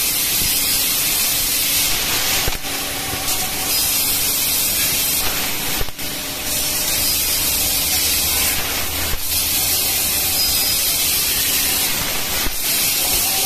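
3 kW fiber laser tube cutter cutting a metal pipe: a steady hiss of gas jetting from the cutting head onto the cut, surging briefly every few seconds, over a faint low machine hum.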